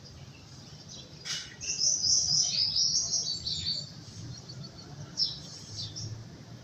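A songbird chirping in a quick run of high chirps lasting about two seconds, with a few fainter chirps later. A sharp click comes just before the chirps start.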